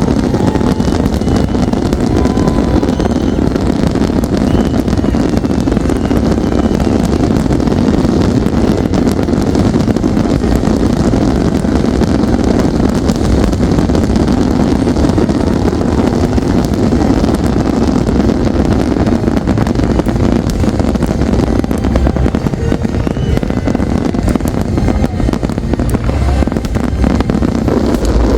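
A fireworks display going off non-stop: a dense, continuous rumble of bursts with many rapid crackles layered over it.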